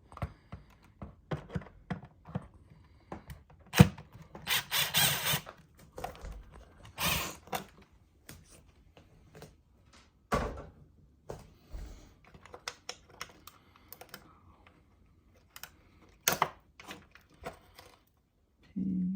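Hands and a screwdriver working on the plastic dispenser housing of a refrigerator: scattered clicks, taps and knocks, with a sharp click about four seconds in and short scraping sounds around five and seven seconds in.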